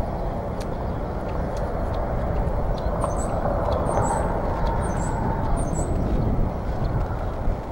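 Steady low outdoor rumble. In the middle, four short high chirps from a small bird come a little under a second apart.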